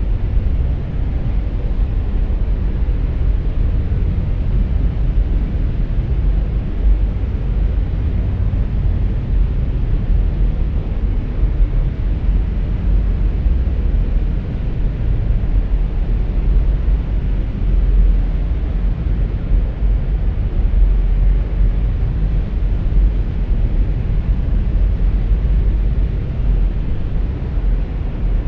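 Cinematic ambient atmosphere: a steady, deep rumble of noise with no distinct events.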